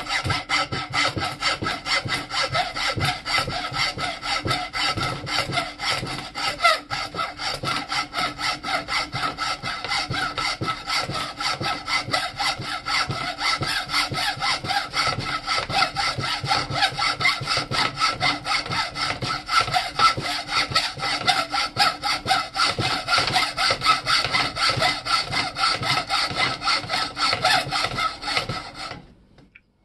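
Hand hacksaw cutting through an old wooden axe haft with steady, even back-and-forth strokes, which stop abruptly near the end.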